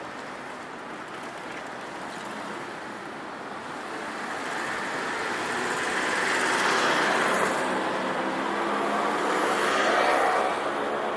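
A motor vehicle passing close by, growing louder from about four seconds in, loudest around seven and again around ten seconds in, then easing slightly.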